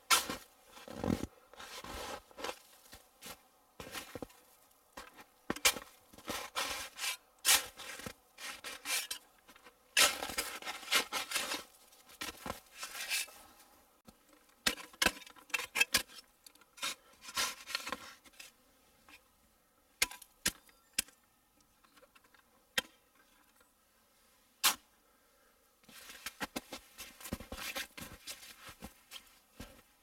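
Snow shovel digging into packed snow: the blade scrapes and cuts, and chunks of snow are lifted and tossed, in irregular strokes. There is a lull of several seconds in the last third, broken by a few sharp knocks.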